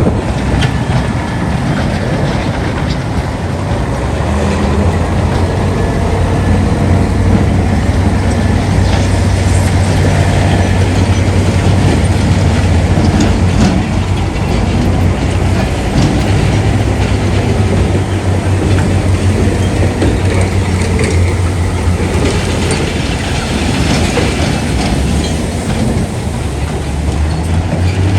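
Heavy diesel earthmoving machinery running steadily, with a deep engine hum and scattered metallic clanks.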